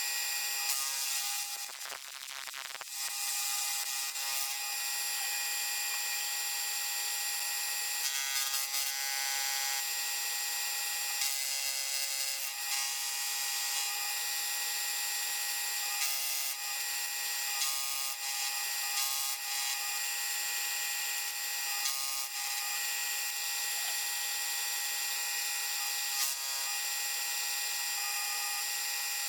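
A power tool in a metal shop running steadily as it cuts, a high whine made of several steady tones over a hiss, with small changes in the sound as the cut goes on.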